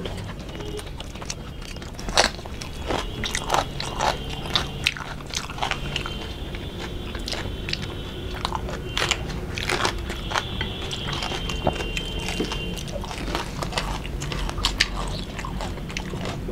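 Close-up chewing and crunching of fried fish and rice eaten by hand, with many sharp, irregular crunches as the mouthfuls are bitten and chewed.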